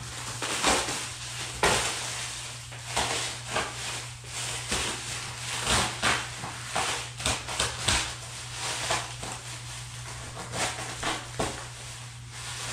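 Plastic stretch wrap being pulled and torn off a large cardboard box, crinkling and crackling in irregular bursts.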